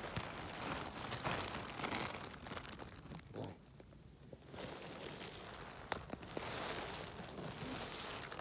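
Soft, uneven rustling noise. It drops almost to quiet for a second or so about three seconds in, then resumes with one sharp click about six seconds in.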